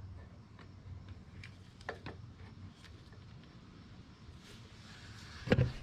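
Faint scattered clicks and light handling of small parts as a throttle linkage is fitted onto a Briggs & Stratton plastic carburetor, with one sharper click about two seconds in, over a steady low hum.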